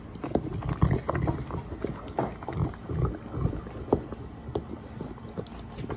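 American Molossus, a giant mastiff-type dog, licking and lapping ice cream from a plastic bowl: irregular tongue and jowl smacks, several a second.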